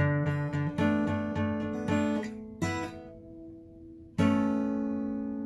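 Acoustic guitar strummed in a quick rhythm that breaks off about two seconds in, followed by a single chord, then a full chord struck near the end and left to ring.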